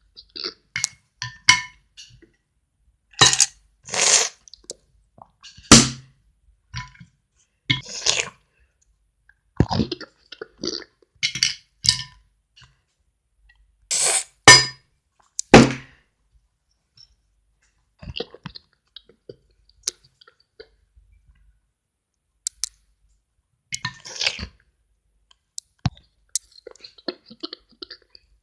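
Irregular clinks, clicks and short crunches of hard plastic Lego pieces, as mock eating noises, with a sparser stretch past the middle.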